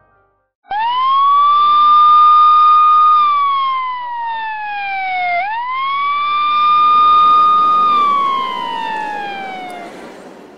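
Police car siren wailing in two slow cycles, each rising quickly, holding high, then gliding down. It starts about a second in and fades toward the end.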